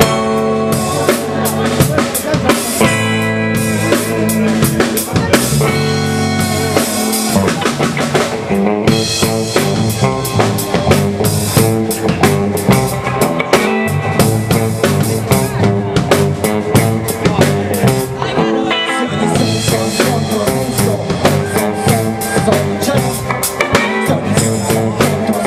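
A live band playing, with a drum kit keeping a steady beat under guitars.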